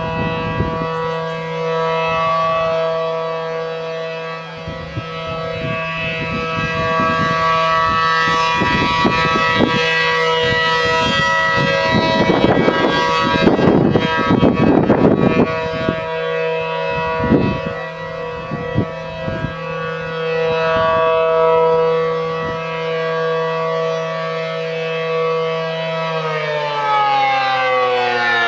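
ACA P-10 outdoor warning siren sounding a steady multi-note chord that swells and fades slowly, then winding down near the end, its pitch falling. A few seconds of rough noise lie over it around the middle.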